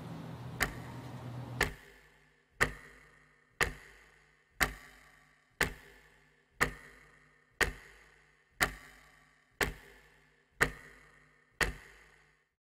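A clock ticking steadily, one tick a second, about a dozen ticks in all.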